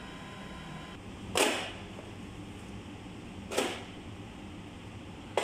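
Two quick swishes about two seconds apart, each falling fast in pitch, over a steady low electrical hum.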